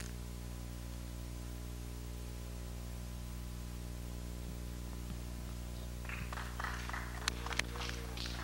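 Steady low electrical hum with a ladder of overtones, the mains buzz of the recording. About six seconds in, faint rustling starts, with two light clicks near the end.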